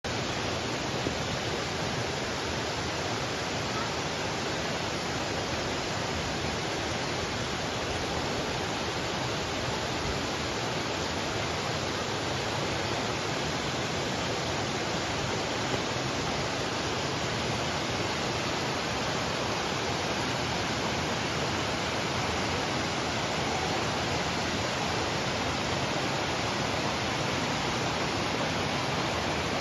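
Steady, unchanging rush of flowing water, like a waterfall.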